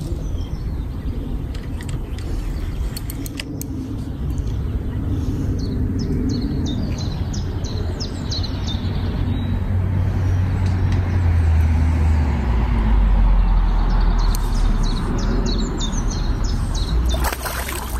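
Low engine rumble of a passing vehicle, swelling to its loudest about two-thirds through with its pitch dropping, then easing off, while small birds chirp. A brief burst of noise near the end.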